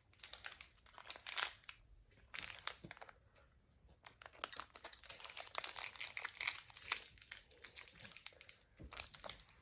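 Plastic candy packaging crinkling as it is handled, in irregular bursts of crackles that turn almost continuous about four seconds in.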